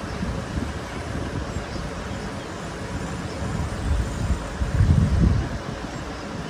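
Wind buffeting the microphone: a low, uneven rumble that swells into a strong gust about five seconds in.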